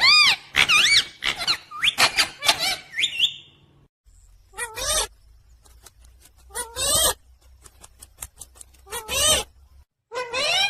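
Pet parrot chirping: a quick run of shrill, warbling calls for the first few seconds, then single squawks about every two seconds.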